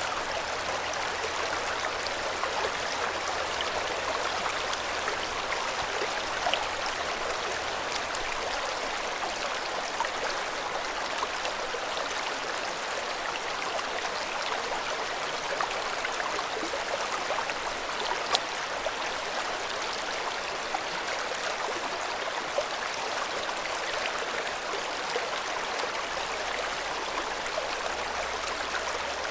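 River water flowing steadily, an even rush with small splashes and gurgles throughout.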